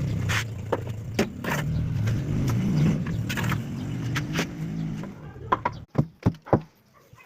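A motor running with a steady low hum, with scattered clicks and knocks over it, cutting off suddenly about six seconds in; a few sharp knocks follow.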